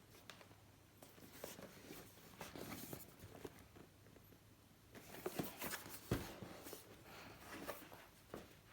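Handling of a power supply's box and packaging: scattered rustles and light knocks, with one low thump about six seconds in.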